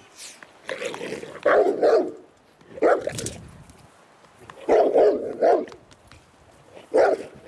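A large dog barking at an approaching stranger, its reaction in a temperament test, while it lunges on its leash. The barks come in short groups of one to three, about seven in all.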